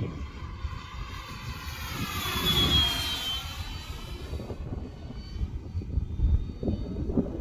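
Electric R/C model warbird (E-flite Focke-Wulf FW-190) flying past, its motor and propeller whine dipping in pitch and rising again, loudest about three seconds in. Gusty wind rumbles on the microphone underneath.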